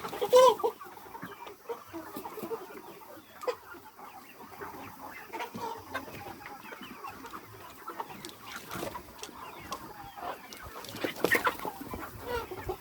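Aseel cross chickens clucking, with a loud call about half a second in and another burst of loud calls near the end.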